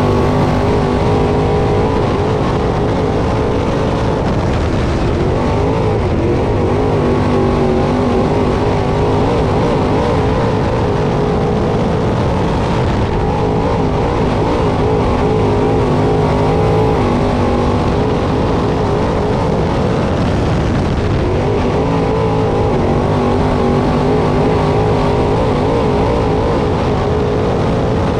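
Several crate late model race cars running on a dirt track, their small-block V8 engines rising and falling in pitch together as the drivers get on and off the throttle.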